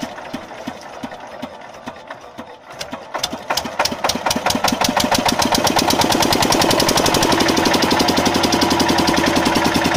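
Single-cylinder stationary diesel engine being started: slow, spaced strokes die away, then about three and a half seconds in it fires and picks up speed. It settles into a fast, steady, loud chugging run.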